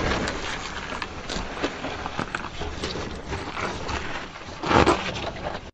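Tyres of a Mercedes-Benz G-Class crunching and scraping over rock and loose gravel as it crawls slowly over a rocky slope, with irregular knocks and a louder crunch a little before the end.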